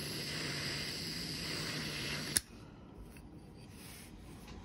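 Small handheld butane torch flame hissing steadily, then shut off about halfway through with a single sharp click. Afterwards only faint handling clicks.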